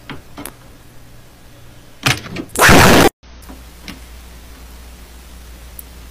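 A short rustle, then a loud crunch about two and a half seconds in as a block is stepped on and crushed underfoot; after that only a faint low hum.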